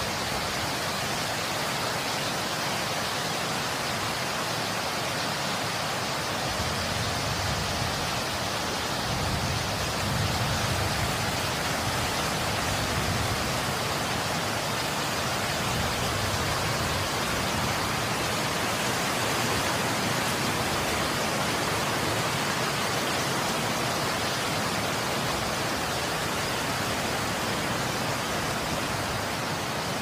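Wind blowing steadily, an even, unbroken noise, with a deeper low rumble building about nine seconds in and easing off over the following several seconds.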